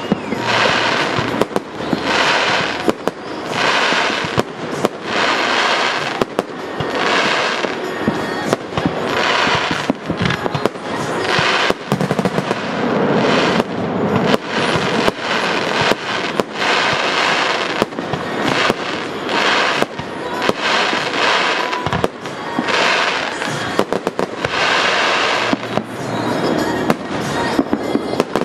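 Aerial firework shells going off in quick succession: sharp bangs, each followed by a crackling, sizzling burst, roughly one a second.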